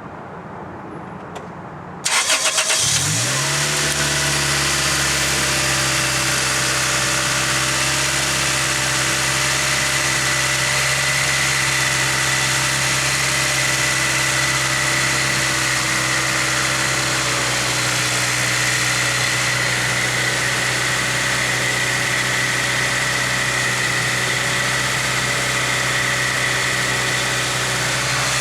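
Toyota Celica GT-S 1.8-litre four-cylinder engine, freshly fitted with a replacement alternator, starting about two seconds in and settling straight into a steady idle. A steady high whine runs through the idle, which the owner puts down to another bearing that is still really loud.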